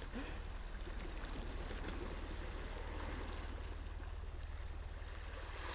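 Sea water washing steadily against the shore rocks, an even rushing wash with a low steady rumble underneath.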